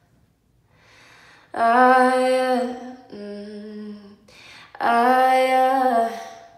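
A woman singing a cappella without words: a held note starting about 1.5 s in, a quieter lower note, then a second loud held note with a slight waver that falls away at the end.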